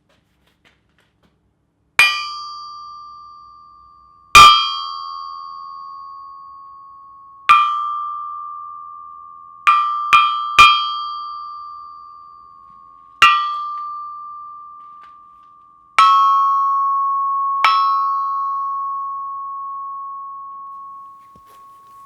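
A 400 lb Kohlswa anvil struck nine times with a hammer, three of the blows in quick succession near the middle. Each blow leaves a clear, high, incredibly loud ring that dies away slowly over several seconds: the anvil is only loosely strapped to its base, so nothing damps it.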